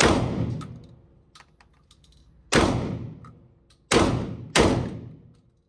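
Four gunshots at an uneven pace, the last two about half a second apart, each followed by about a second of echo.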